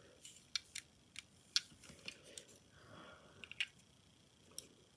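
Faint, irregular light clicks and taps from handling a small HO scale die-cast model truck and its packaging, with a soft rustle about three seconds in.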